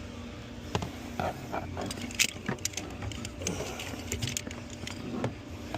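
Irregular clicks, knocks and rattles of a car's computer module and its wiring connectors being handled and pulled free, loudest about two seconds in.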